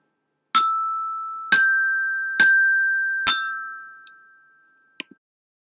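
Two resonator bells, E and G, struck four times about a second apart in the pattern E, G, G, E, each note ringing on and dying away. Two faint clicks near the end.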